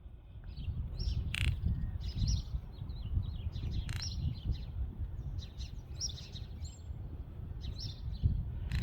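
Greater roadrunner clicking among a run of short high bird chirps. Two sharp, louder clicks stand out, about a second and a half in and about four seconds in.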